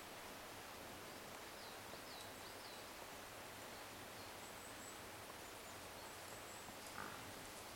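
Quiet woodland ambience: a steady faint hiss with a few short, high bird chirps now and then. A brief soft rustle about seven seconds in; no stag call is heard.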